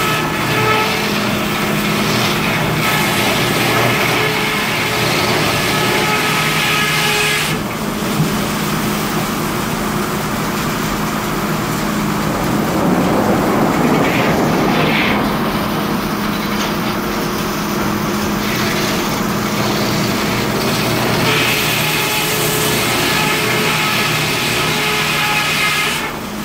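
Large circular head saw of a sawmill cutting lengthwise through a log, over the steady hum of the mill's drive. The high whine of the cut is strong for the first seven seconds or so, drops away in the middle with a rougher rumble around thirteen seconds, and returns from about twenty-one seconds.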